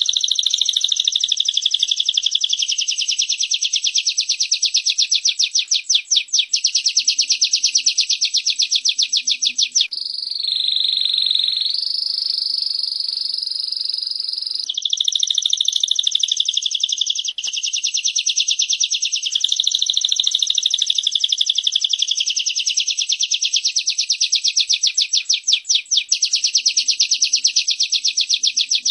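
Birdsong of a female prinia (prenjak) and a canary: long, fast trills of rapidly repeated high notes. About ten seconds in, a smoother, steadier high note takes over for about four seconds, then the fast trill resumes.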